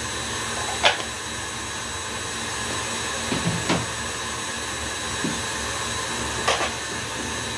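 Electric stand mixer running steadily with a constant high whine, beating cake batter through a long mix. Three light knocks sound over it, about a second in, near four seconds and near six and a half seconds.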